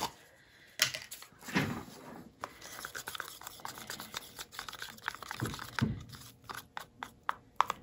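Irregular rustling, crinkling and light clicks of plastic paint cups being handled by a gloved hand, with a couple of soft knocks.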